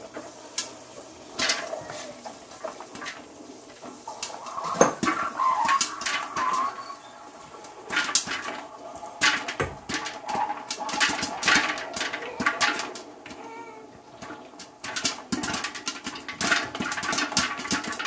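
Microwave popcorn kernels popping in a Stir Crazy electric popcorn popper: irregular sharp pops that come thicker in the second half, over a faint steady hum.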